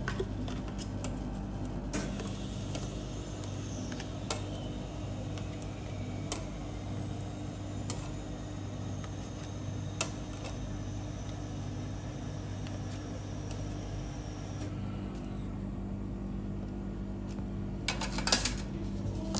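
Steady low hum of a refrigeration compressor, with a few light clicks of a metal spatula on the steel ice-cream cold plate and a quick run of clinks near the end.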